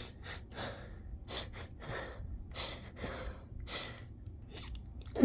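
A person's quick, ragged gasping breaths and sniffles, about three a second: the hitching build-up of a sneeze being held back.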